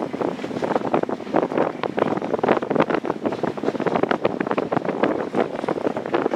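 Wind buffeting the microphone: a loud, gusty, crackling rush with no steady engine tone.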